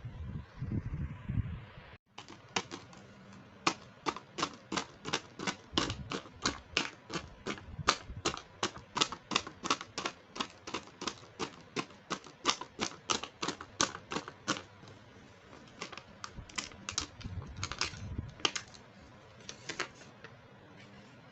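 Rapid, even clicking of small plastic toy parts being handled, about three or four clicks a second, thinning to a few scattered clicks near the end.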